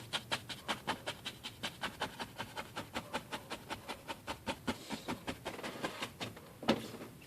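Paintbrush tapped rapidly against a stretched canvas, about seven even taps a second, stippling on paint, fading a little toward the end, with one louder knock near the end.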